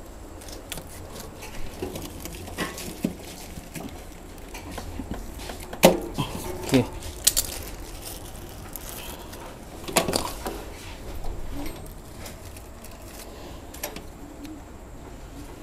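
Scattered metal clicks, clinks and knocks as parts and fittings of a stainless-steel dough sheeting machine are handled and adjusted by hand; the machine itself is not running. The sharpest knocks come about six seconds in and again about ten seconds in.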